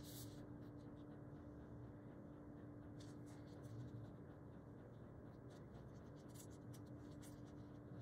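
Faint rustling and light scratching of paper as sticker sheets are handled on a planner page, in a few short scrapes about three seconds in and again near the end. A thin steady low hum runs underneath.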